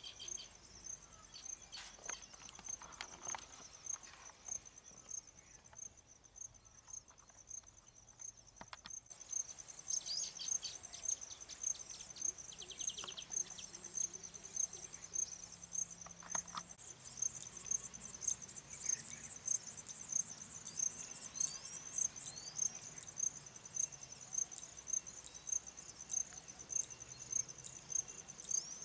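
A cricket chirping in an even rhythm, a short high pulse about every two-thirds of a second. From about a third of the way in, bird chirps, quick falling calls and a fast high trill join it.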